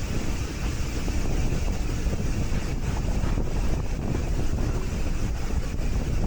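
Steady rumbling running noise of a heritage railway train on the move, with wind buffeting the microphone.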